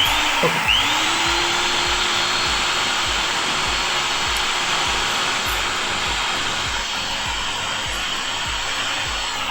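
Electric motor of a 5 kg KPT 0810 demolition breaker switched on straight from the mains, spinning up with a quick rising whine, running steadily at full speed with a high whine and brush hiss, and starting to wind down right at the end. This is a speed test after servicing: the repairer says the motor now runs properly, no longer slow and noisy.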